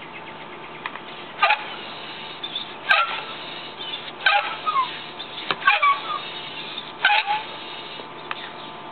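Floor pump being worked to inflate a motorcycle inner tube, five strokes about a second and a half apart, each with a squeaky rush of air.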